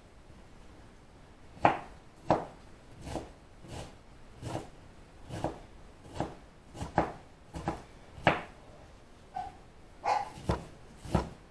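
A dog barking repeatedly, short sharp barks starting a couple of seconds in at about one a second, coming faster near the end.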